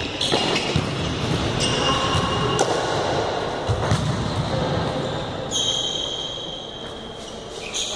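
Futsal game in a large gym hall: the ball being kicked and bouncing on the court, several sharp knocks, with players' shoes squeaking on the floor in short high bursts, the strongest a little past the middle.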